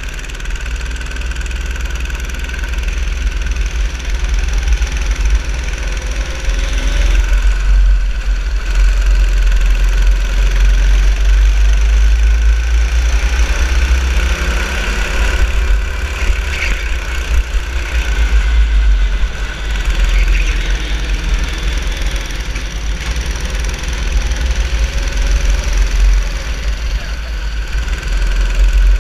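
Go-kart engine running under throttle, its pitch rising and falling several times as it accelerates and slows for corners. A heavy low rumble of wind and vibration on the kart-mounted camera lies under it.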